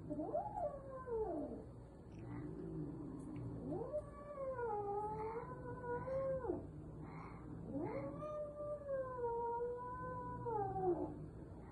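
A cat yowling: a short rising-and-falling call, then two long, wavering, drawn-out yowls of about three seconds each. It is the warning yowl of a cat facing off with another cat.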